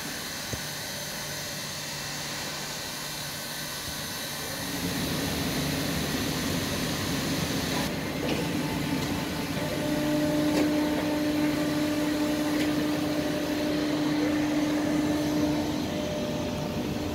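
Hydraulic power pack of a Francis Shaw K1 intermix rubber mixer running during a dry test with the rotors stopped: a steady machine hum. It grows louder about four seconds in, and a strong steady tone joins about ten seconds in, with a few faint clicks.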